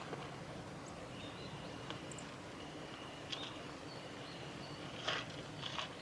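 Quiet outdoor ambience with a few short rustles or ticks, the loudest two near the end, over faint thin high tones that come and go.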